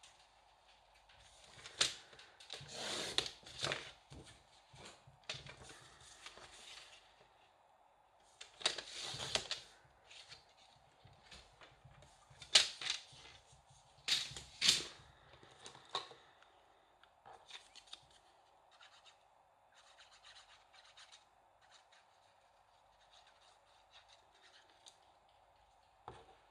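Cardstock and paper being handled at a craft table: short bursts of paper rustling and scattered sharp clicks and snaps, the loudest in the first half, with only faint small ticks in the second half.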